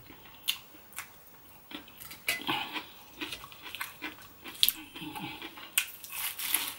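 Close-up eating sounds: scattered clicks as food is picked from a plate with the fingers, then a crumbed prawn cutlet bitten and chewed, with a denser crunchy stretch near the end.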